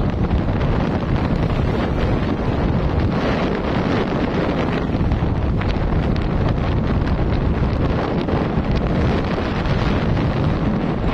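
Steady wind buffeting the microphone while riding at road speed: a dense, even rumble and hiss with no letup.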